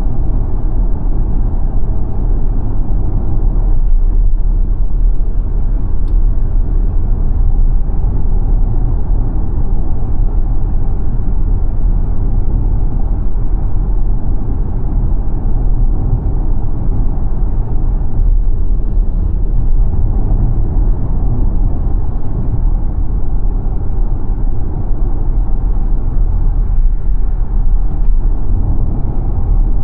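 Steady low road and tyre rumble from the Xpeng G9 Performance electric SUV driving along, with no engine note.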